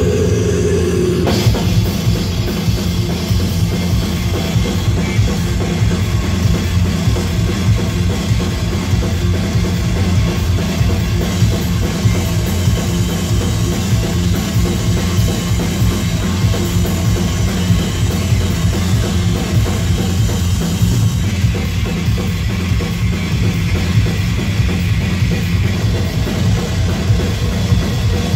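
Live heavy metal band playing loud: distorted electric guitars and bass over a pounding drum kit, with no vocals. The full band comes in hard about a second in and keeps up a dense, heavy wall of sound.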